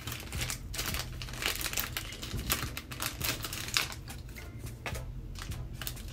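Packaging crinkling in quick, irregular crackles as a pair of earrings is unwrapped by hand.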